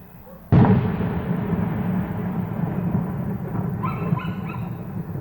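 A firework shell bursts with one loud boom about half a second in, followed by a long low rumbling echo that slowly fades. Near the end come a few short, high-pitched yelps.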